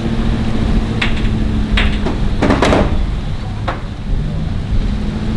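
Wind rumbling on the microphone over a steady engine hum, broken by several sharp knocks, the loudest about two and a half seconds in.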